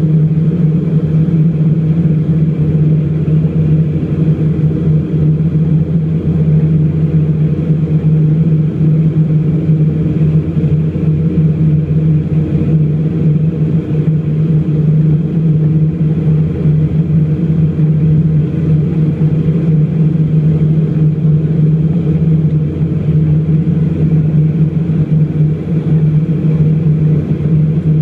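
Embraer EMB 120 Brasilia's twin turboprop engines and propellers heard from inside the passenger cabin on landing approach: a loud, steady low propeller drone with a strong low hum and fainter higher tones above it.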